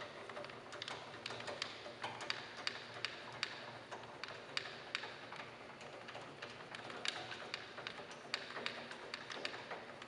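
Irregular light clicks and taps, a few a second, from the blade-adjusting handwheel and its screw mechanism on an SCM Minimax SC3 sliding table saw being cranked by hand, with the saw switched off.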